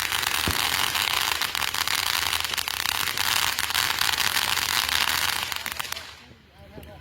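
Consumer firework sending out a dense hiss of rapid crackles that dies away about six seconds in.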